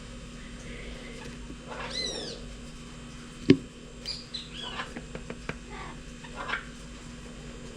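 Bird calls: a few short arching calls, one of the louder ones about two seconds in. A single sharp click, the loudest sound, comes about three and a half seconds in, followed by a few faint ticks.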